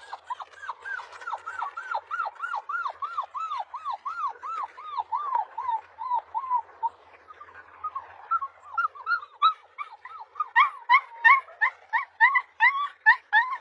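Husky puppy whining in a rapid series of short cries that each rise and fall in pitch, about three a second. After a short lull about seven seconds in, the cries turn into quicker, sharper yips.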